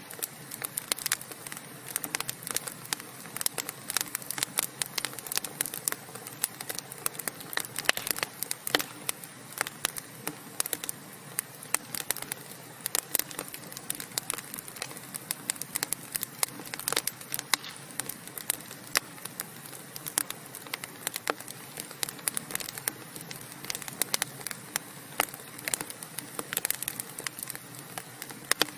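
Wood fire crackling steadily: a soft hiss of burning logs with many small, irregular pops and snaps.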